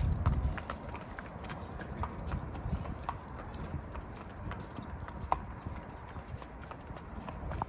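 Hooves of young horses clip-clopping at a walk on wet asphalt, a scatter of sharp, irregular clops.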